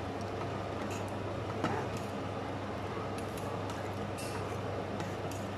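Metal ladle stirring a chicken and vegetable stew in a stainless steel pot, with faint clinks and a knock against the pot about 1.7 s in, over a steady low hum.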